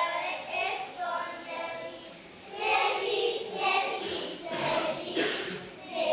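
A group of young children singing together, louder from about two seconds in.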